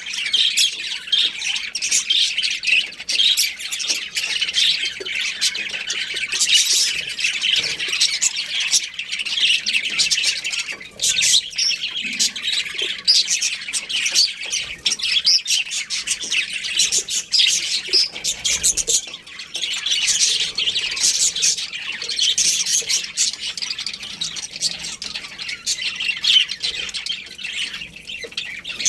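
Small pet parrots chirping and squawking without a break, a dense stream of short, high chirps and chatter.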